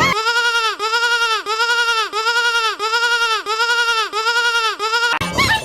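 Sheep-bleat sound effect looped: one short bleat repeated about ten times in a row, two a second, each an identical call that rises and falls in pitch.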